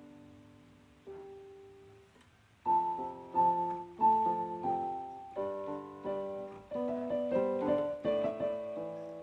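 Background piano music: a few soft notes fading away, then from about two and a half seconds in a louder run of struck chords and melody notes, one or two a second.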